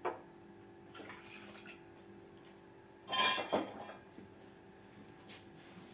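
Water poured from a small glass into a small cooking pot, with a knock of glass against the pot at the start and the loudest splash about three seconds in.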